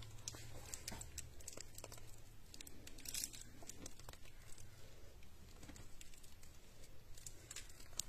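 Faint crinkling of a piping bag being squeezed in a gloved hand while whipped cream is piped, with scattered small clicks and crackles.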